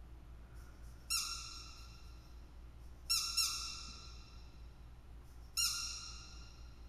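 Squeaky dog toy squeaked four times: once, then a quick pair about two seconds later, then once more near the end. Each is a short high squeak that fades away.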